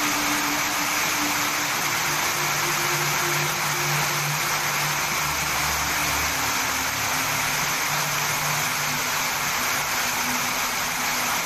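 Hail and heavy rain pelting a paved backyard, a dense, steady hiss.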